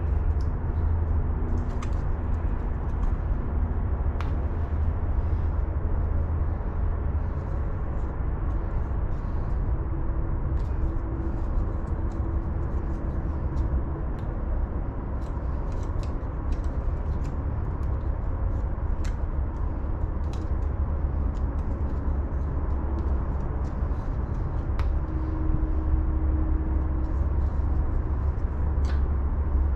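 A steady low rumble throughout, with scattered light clicks and taps of an air-hose fitting being handled and threaded on by hand.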